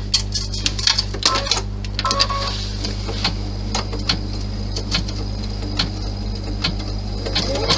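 Irregular sharp clicks and taps from handling the embroidery hoop and taped vinyl over a steady low hum; near the end the embroidery machine starts stitching, its sound building quickly.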